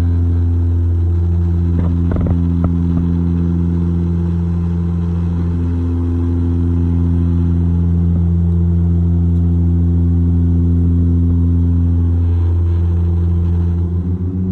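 Turboprop airliner's propeller and engine drone heard inside the cabin: a loud, steady low hum with overtones. It wavers and pulses near the end as the plane descends toward landing.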